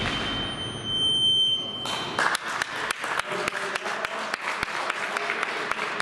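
An electronic buzzer sounds one steady high tone for about two seconds, then applause with individual hand claps breaks out and goes on.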